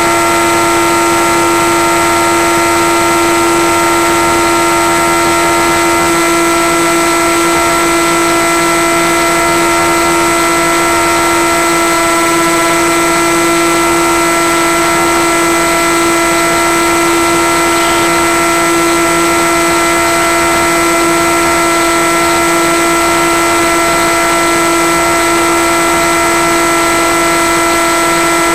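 Electric motor and propeller of a Skywalker FPV plane running steadily at cruise power: a constant whine of several steady tones over a hiss, a couple of the lower tones dropping out about six seconds in.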